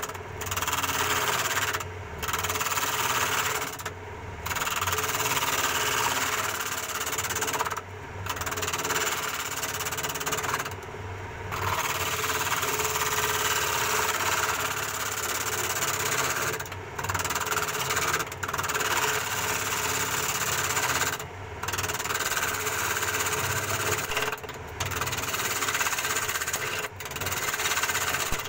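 Wood lathe running, with a turning tool cutting into the spinning wood. The cutting noise drops out briefly about ten times while the motor hum carries on.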